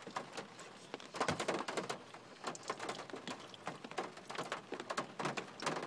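A person eating close to the microphone: soft, irregular small clicks and rustles of chewing and handling food, several a second.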